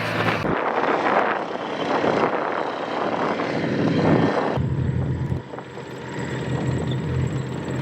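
Heavy engine noise, steady and loud. It changes abruptly just past halfway, where a low engine hum takes over.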